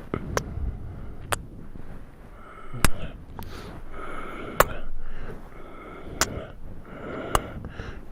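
Close-microphone ASMR kissing: sharp wet lip smacks about once a second, with breath sounds between them.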